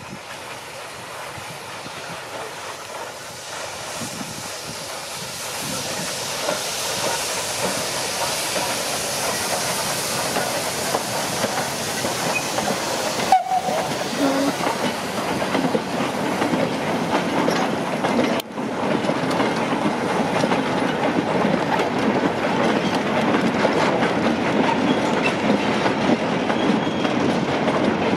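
An LMS 3F 'Jinty' 0-6-0 tank engine hauls a goods train past, its steam hissing as it draws nearer and grows louder. A long rake of short four-wheeled goods wagons then rumbles and clatters by over the rail joints.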